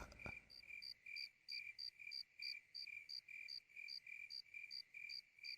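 Faint cricket chirping, a steady run of short, high chirps about three a second.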